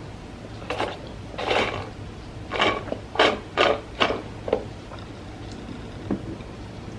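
Close-miked chewing of crunchy fried food: a run of irregular crunches over the first few seconds, then one faint crunch near the end.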